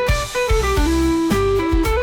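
Background music: a guitar melody over bass with a steady drum beat.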